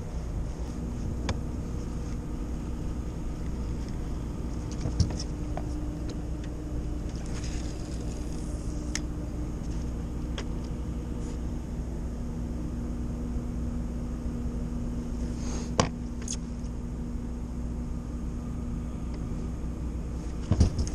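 A steady low mechanical rumble with a constant hum, broken by a few light knocks, the sharpest about sixteen seconds in.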